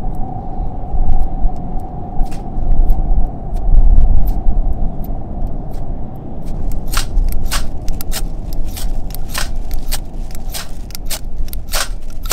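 A steady low rumble, then from about halfway a run of quick sharp clicks and light metallic taps, the sound of a stainless steel folding fire box being handled and put together.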